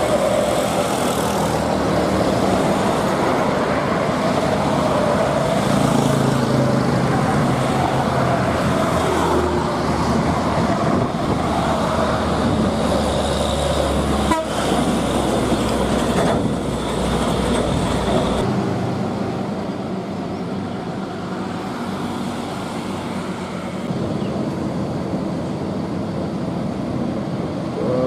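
Heavy truck and bus engines running hard under load, with horn toots at times. The deep engine rumble drops away abruptly about two-thirds of the way through.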